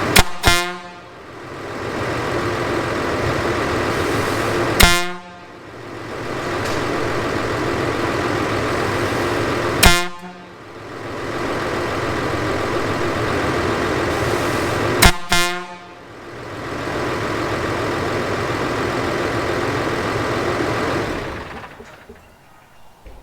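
Case Maxxum 150 tractor's engine running steadily, with short blasts of a 2-foot air horn fed by the tractor's on-board air compressor, four times about five seconds apart, the first and last as quick double toots. The engine sound fades out near the end.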